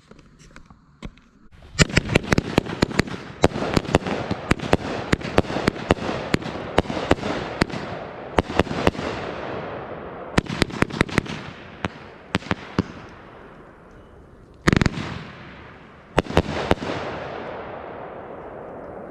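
A 500 gram, 25-shot consumer firework cake firing: after a short quiet start, its shots go off in a rapid, irregular string of sharp bangs over a continuous rushing noise. After a brief lull comes the loudest single bang, about 15 seconds in, then a last few shots, and the noise tails off.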